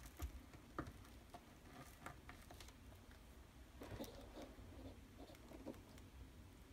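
Near silence with a few faint, scattered clicks and taps of small plastic Lego pieces being handled.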